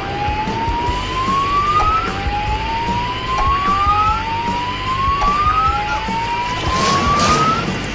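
A siren with a rising whoop: each sweep climbs in pitch for about two seconds, then drops back and starts again, four times, over a steady low rumble. A brief hiss comes in near the end.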